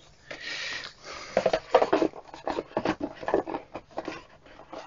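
Paper and cardboard packaging being handled: a short rustle of a paper leaflet, then a run of light knocks and scrapes as a cardboard box is moved about.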